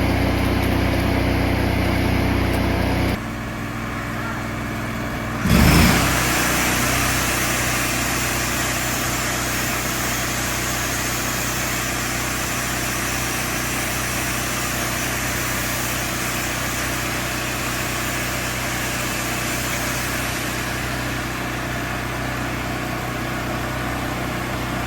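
A small engine runs steadily, and its note changes about three seconds in. After a brief loud knock, a stick-welding arc crackles and sizzles steadily over the running engine.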